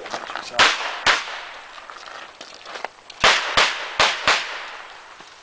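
Six revolver shots: two about half a second apart, then after a pause of about two seconds four more in quick succession, each with a short echo.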